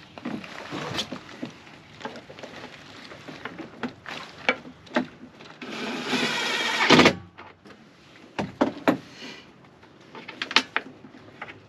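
Hand-work knocks and clicks of tools and parts, with a burst of a cordless drill-driver running for about a second and a half around six seconds in, cutting off abruptly.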